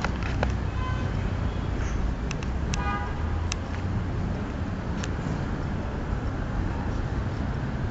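Street traffic rumbling steadily, with two short high-pitched toots about one and three seconds in.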